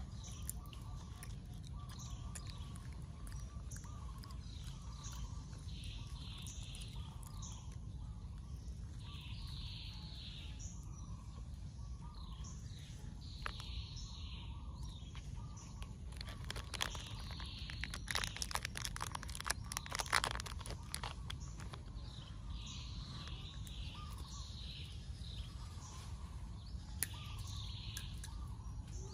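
Outdoor ambience of birds chirping in short calls that come back every few seconds over a low steady rumble, with a cluster of sharp clicks and crackles around the middle.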